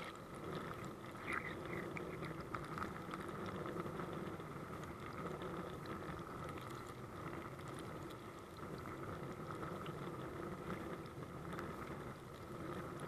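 Fountain water jet splashing and churning against an SJ4000 action camera's waterproof case, heard from the camera's microphone inside the sealed housing: a steady bubbling rush, with a few small clicks in the first few seconds.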